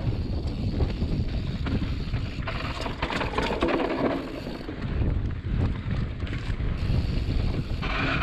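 Wind rushing over the microphone and tyres rolling over dry dirt as a mountain bike descends a trail at speed, with many small clicks and rattles from the bike over bumps.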